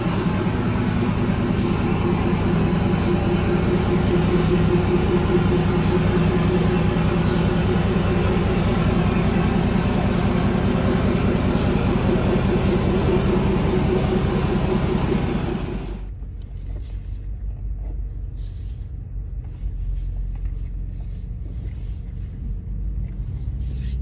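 Engine running steadily with a deep rumble. It cuts off suddenly about two-thirds of the way through, giving way to a quieter low rumble with occasional light knocks, heard from inside a moving car.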